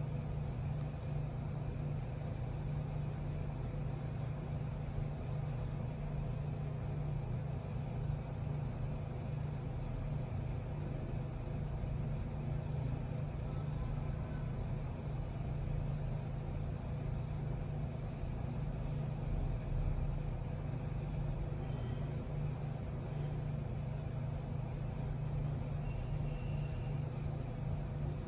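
Steady low mechanical hum of room equipment and air handling, with a faint steady higher tone over it and no distinct events.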